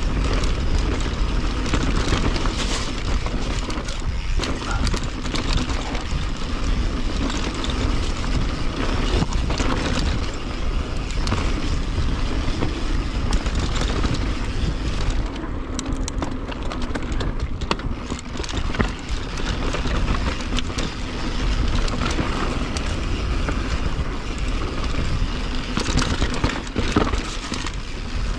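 Wind rushing over the camera microphone as a YT mountain bike rolls down a dirt singletrack, with tyre noise and scattered knocks and rattles from the bike over rough ground.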